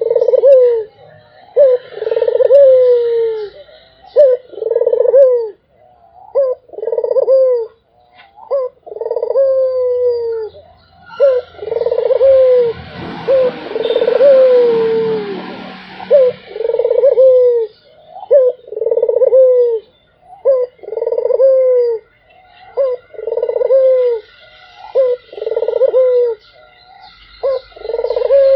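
Puter (Barbary dove) cooing over and over, short rising-then-falling coos about one a second with hardly a break. A rushing noise swells under the coos for a few seconds in the middle.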